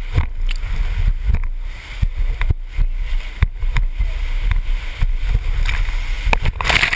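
River whitewater rushing around a raft, with a steady low rumble of wind on the microphone and irregular sharp knocks throughout; a brief louder splash near the end.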